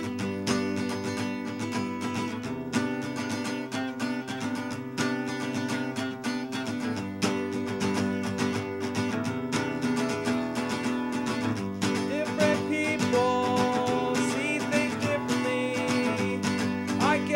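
Acoustic guitar strumming chords steadily in an instrumental passage of an acoustic song, with no singing; about twelve seconds in, a higher melody line joins with held notes.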